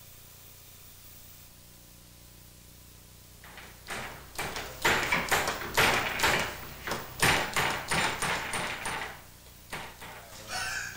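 Kitchen knife chopping an onion on a cutting board: a quick, irregular run of chops, about three a second, starting a few seconds in and lasting about six seconds.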